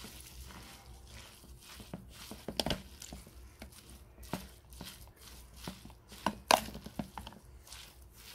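A spoon mixing bibimbap of rice and vegetables in a plastic bowl: irregular scrapes and knocks of the spoon against the bowl, the loudest knock about six and a half seconds in.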